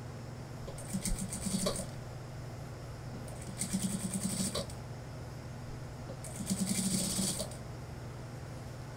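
Industrial single-needle sewing machine stitching in three short runs of about a second each, over a steady low hum.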